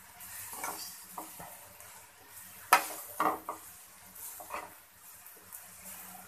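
A metal fork tossing spaghetti and shredded vegetables in an aluminium wok, scraping and clinking against the pan over a faint sizzle. There are a few sharp clinks, the loudest a little under halfway through.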